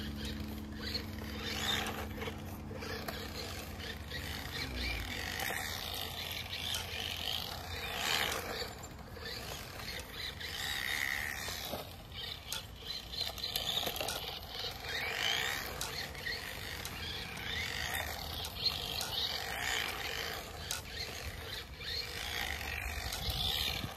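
Traxxas LaTrax Rally 1/18-scale electric RC car driving laps on pavement: its motor and drivetrain whine falls and rises in pitch every few seconds as it slows and speeds up through the turns, with scattered clicks. There is an abnormal noise from the rear drivetrain, which the owner suspects is damage to the rear axle from a rock that got stuck underneath.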